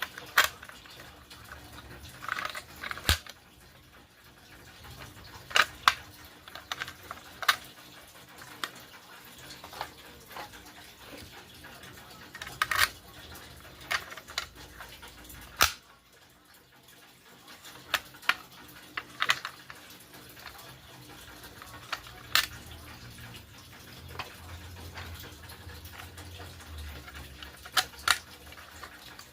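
Simplex T-bar fire alarm pull stations being pulled and reset: a series of sharp mechanical clicks and clacks, irregularly spaced a second to several seconds apart.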